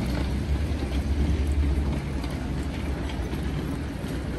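Wet city-street ambience: a steady low rumble, strongest about a second in, under an even hiss with faint clicks and rattles.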